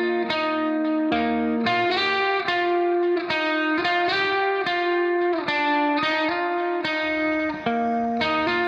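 Background music: a guitar plucking a melody of quick notes.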